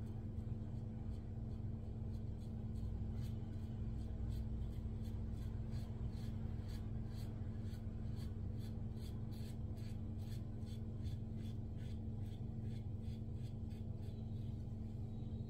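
Gillette Diplomat double-edge safety razor scraping through lathered stubble in short strokes, about three a second, on the first pass of the shave. Underneath is a steady low hum.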